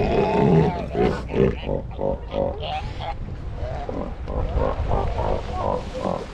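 Southern elephant seals calling from a crowded haul-out: one long, loud call in the first second, then a string of shorter calls from several animals.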